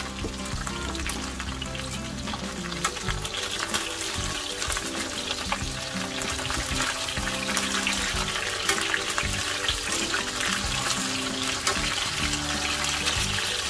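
Background music with a steady bass line over a continuous crackling hiss.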